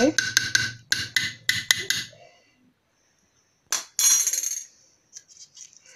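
A metal spoon tapping against the rim of a metal cooking pot to knock off tomato paste: several quick ringing clinks in the first two seconds. After a pause there is a sharp click and a brief clatter about four seconds in.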